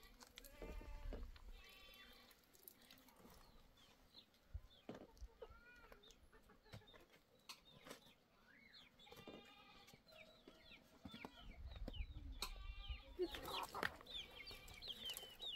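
Faint farmyard animal calls: hens clucking, with goats bleating now and then, in many short, separate calls that grow busier near the end.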